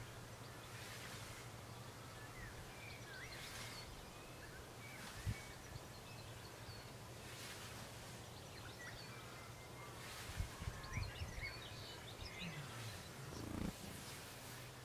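Scythe with an 85 cm Falci blade swishing through lawn grass in regular cutting strokes, about one every two to three seconds, with small birds chirping. A few low thumps about ten seconds in.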